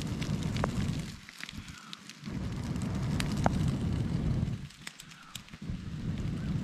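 A person blowing hard into a small wood campfire to get the kindling going: three long blows, a short one at the start, a longer one about two seconds in and another near the end, with the burning kindling crackling and popping between and under them.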